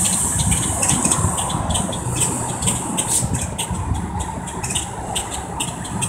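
City bus engine running, a steady low rumble, with many short high ticks over it.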